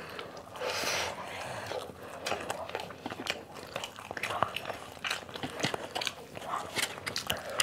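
Close-miked chewing and crunching of crispy fried chicken skin and meat, with many small clicking bites and mouth sounds and a louder crunch about a second in.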